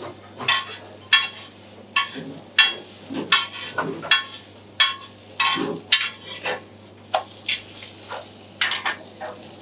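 Slotted metal spatula scraping and tapping on a flat iron tawa, a dozen or so irregular strokes, while a paratha fries in butter with a steady sizzle underneath.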